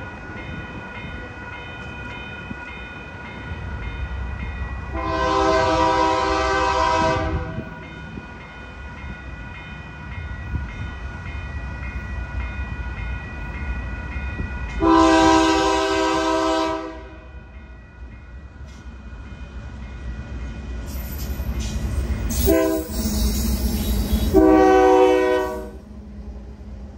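Union Pacific freight locomotive's horn sounding the grade-crossing signal: two long blasts, a short one and a final long one, as the train approaches. Under it, a steady ringing from the crossing signal's bell and a low rumble of the train that grows toward the end.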